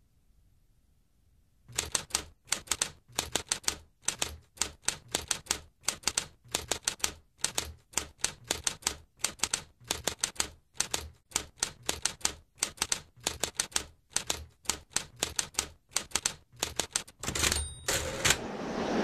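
Typewriter keys clacking in quick, uneven runs of a few strikes a second for about fifteen seconds, ending in a short, different clatter.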